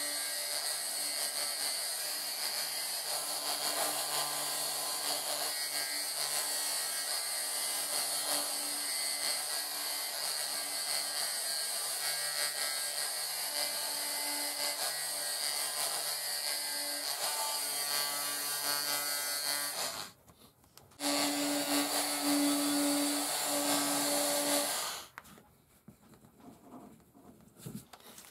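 Rotary carving tool handpiece running with a steady whine while its burr scratches into hard maple, carving a rosette. It stops for about a second about two-thirds of the way in, runs again for a few seconds at a higher pitch, then stops well before the end.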